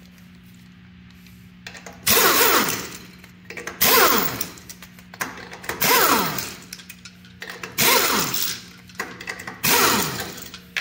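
Pneumatic impact wrench spinning lug nuts off a trailer wheel in five short bursts about two seconds apart, each falling in pitch as the tool winds down.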